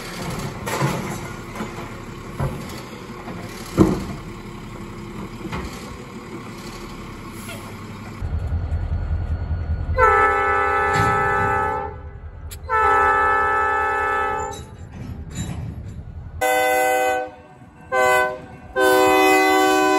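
Air horn of an EMD SD40-2 diesel locomotive sounding a chord of several notes in the grade-crossing pattern: two long blasts, two short ones, then a long one held. Under it, starting about eight seconds in, the low rumble of the approaching locomotive.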